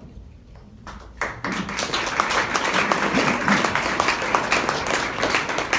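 Audience applauding: a few claps about a second in, quickly filling into a steady round of clapping.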